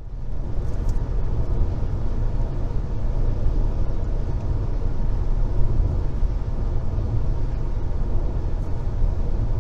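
Steady low rumble of a car cruising at highway speed, tyre and engine noise heard from inside the cabin.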